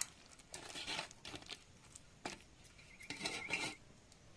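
Wet ripe jackfruit pulp squished and rubbed by hand against a perforated steel sieve, in soft, irregular squelchy bursts.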